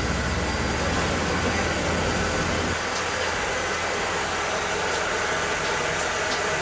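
Machinery running with a steady hiss and whir; a low rumble beneath it drops away nearly three seconds in.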